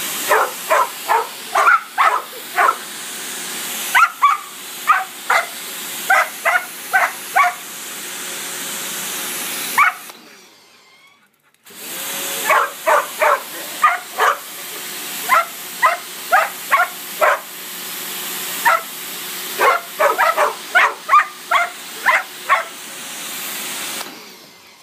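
Dogs barking in quick runs of short, sharp barks at the spray of a pressure washer (gurney), whose steady water hiss cuts out for nearly two seconds about ten seconds in, then starts again.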